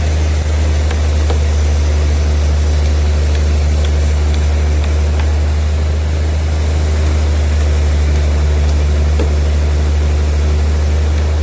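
Large sawmill machinery running steadily, a deep continuous hum with a rushing noise above it that holds even throughout.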